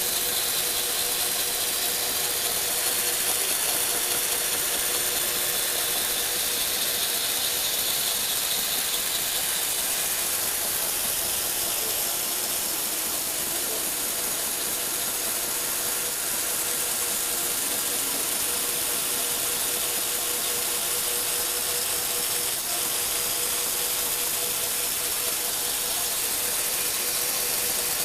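Lego Technic electric motors driving plastic gear trains, running steadily with a constant mechanical whir and gear noise and a faint steady hum.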